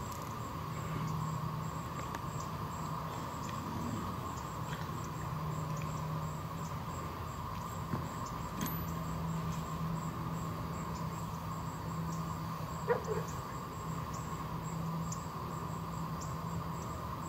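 Steady background hum with a constant mid-pitched tone and faint high ticks repeating a little more than once a second, plus one short soft sound about thirteen seconds in.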